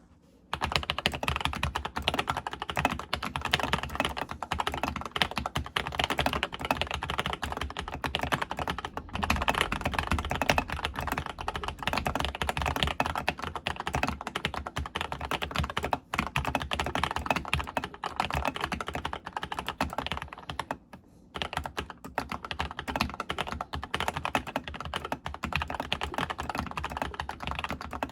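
Keychron K8 mechanical keyboard with lubed Gateron Milky Yellow linear switches, foam in the case and PE foam on the PCB, typed on fast and continuously, with short pauses twice.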